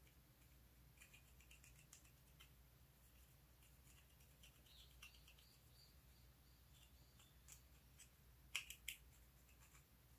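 A ball-tipped tool scraping and crumbling pressed eyeshadow powder in its plastic compact. It makes faint, irregular scratches and light clicks, with a couple of louder clicks near the end.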